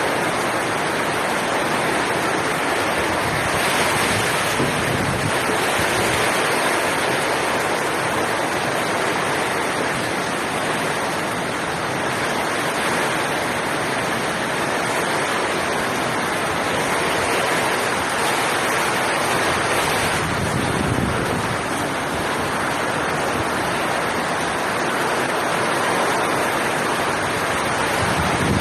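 Heavy typhoon rain pouring down in a steady roar, swelling and easing a little every few seconds.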